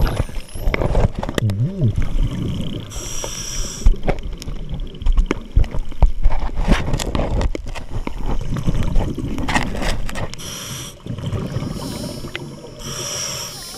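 Scuba diver breathing through a regulator underwater: hissing inhalations every few seconds with gurgling exhaled bubbles between them, and scattered sharp clicks and knocks.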